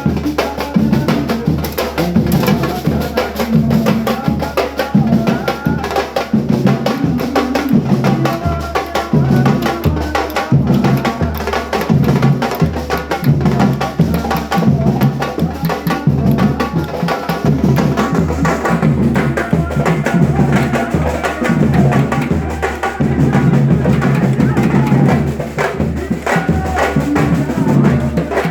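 A group of drums playing a steady, dense rhythm, with deep bass drum strokes under faster, higher drum hits.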